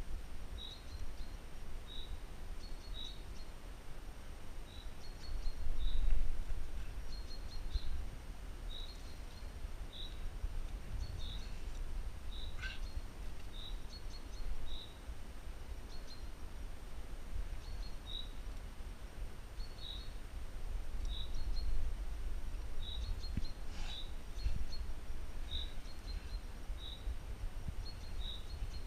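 A bird repeating a short, high chirp about once a second, over a low rumble of wind on the microphone that swells twice.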